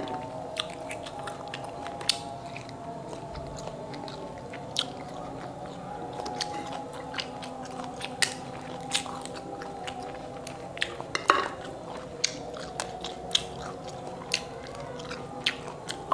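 Thin, brittle rinds of matoa fruit cracking and snapping as they are pressed and peeled open by hand, with chewing of the fruit between. The cracks come irregularly, a second or two apart, and the loudest is about two-thirds of the way through.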